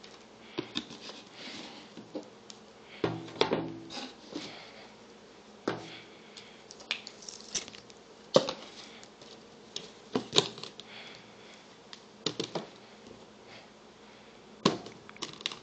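Sneakers and a cardboard shoe box being handled: scattered rustles, light knocks and taps as the shoes are lifted out and set on the box.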